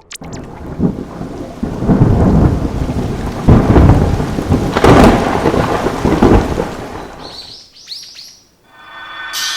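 Loud rumbling, crackling noise that swells about two, three and a half and five seconds in and fades away near the end, with a few short high chirps as it dies out.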